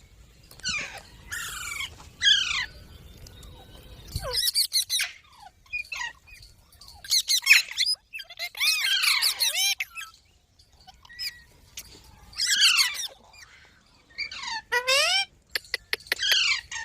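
Pet green parrot screeching and squawking: harsh calls, many falling in pitch, in bursts with short pauses, with the longest run of calls in the middle.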